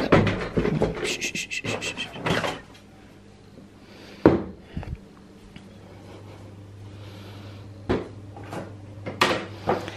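A plastic cat carrier with a metal wire grille door being lifted and handled: the grille clatters and rattles in quick clicks over the first two seconds or so, then a few separate knocks and bumps follow as the carrier is carried and set down on a tiled floor.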